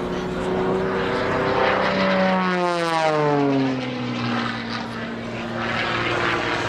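Edge 540 aerobatic plane's piston engine and propeller passing close by, its note rising slightly and then dropping steeply in pitch about three seconds in as it goes past.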